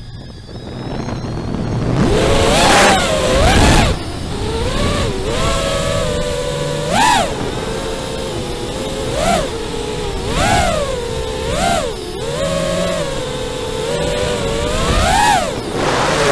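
FPV freestyle quadcopter's brushless motors and propellers whining. The pitch swoops up with each throttle punch and settles back, several times over. The whine is low at the start and builds from about two seconds in.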